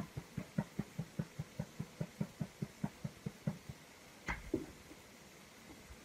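Fingertips tapping rapidly on the under-arm point of the ribs through a sweatshirt during EFT tapping, a quick steady rhythm of soft knocks, about five a second. The tapping stops after about three and a half seconds, and a single louder thump comes a little past four seconds as the hands move.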